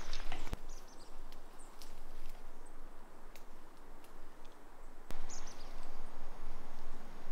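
Woodland ambience in dry brush: scattered sharp snaps and rustles in leaf litter and a few short high bird chirps, with the rustling getting louder from about five seconds in.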